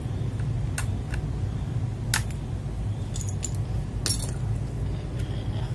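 Scattered sharp plastic clicks and clinks, a second or so apart, from mechanical-keyboard parts being handled and fitted during assembly, over a steady low hum.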